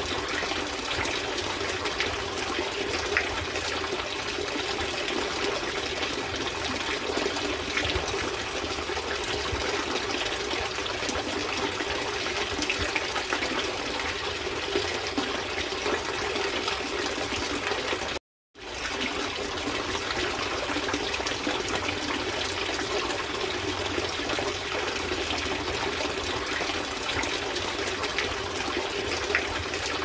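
Several thin streams of water pouring from pipes into a koi pond, splashing steadily onto the surface. The sound cuts out completely for a moment about two-thirds of the way through.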